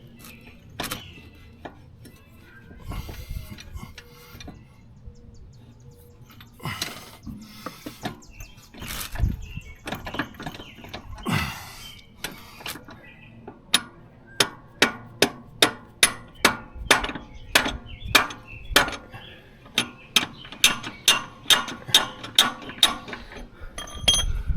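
Scattered metal knocks and scraping, then a long run of sharp, evenly spaced metal-on-metal strikes, about two or three a second, each with a short ring: a tight rear axle on a motorcycle being tapped out of the swingarm a little at a time.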